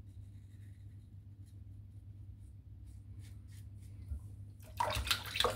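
Straight razor (shavette with a Feather Artist Club blade) scraping through lather and stubble in short, faint strokes. A louder, rougher burst of noise comes near the end.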